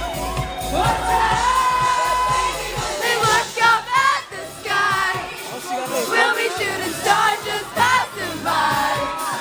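Live pop music: a female singer's voice gliding through sustained, bending vocal lines over the band's backing, with a crowd audible behind.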